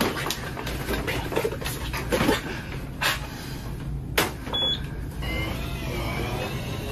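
Electric mobility scooter: a couple of sharp knocks as the rider settles onto it, then its electric motor whining as it pulls away, starting about five seconds in.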